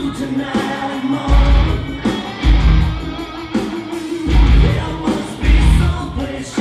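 Rock music with heavy bass hits.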